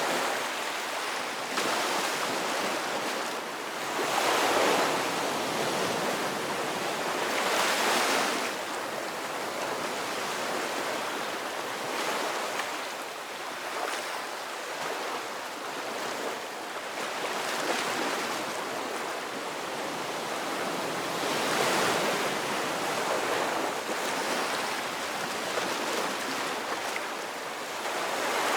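Ocean waves breaking and washing on the shore in a steady, continuous surf, each wave swelling and fading over a few seconds.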